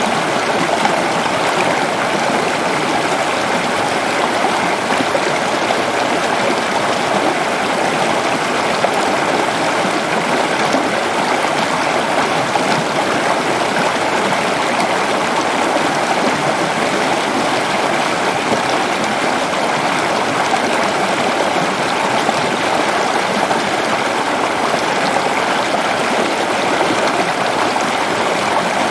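Waterfall: water falling and rushing steadily, a constant, unbroken noise.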